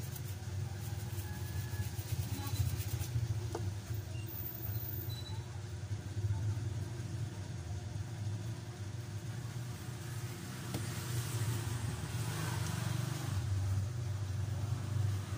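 Low, steady rumble of a motor vehicle engine running, swelling and easing a little. Over it comes the faint scratching of a small brush scrubbing a phone's edge, most noticeable in the last few seconds.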